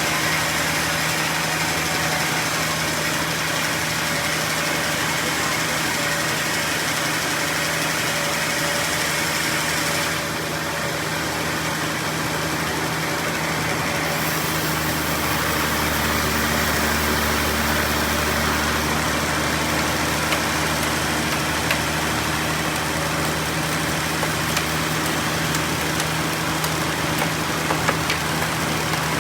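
Sawmill machinery running steadily: a constant engine-like hum under a broad hiss, shifting slightly about ten and again about fifteen seconds in.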